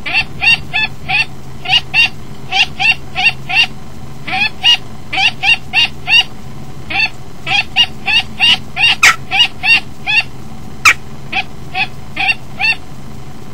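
Female common kestrel giving loud, sharp alarm calls in quick runs of three to five, about four calls a second with short breaks between runs: an agitated response to a jackdaw on the nest-box grate.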